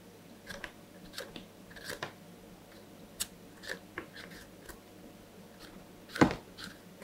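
Kitchen knife cutting the skin off a raw yam tuber: a series of short cutting strokes at irregular intervals, with one louder knock about six seconds in.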